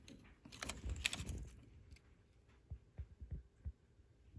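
Faint handling noise: scattered light clicks and taps, a small cluster about a second in and a few single ticks around three seconds in.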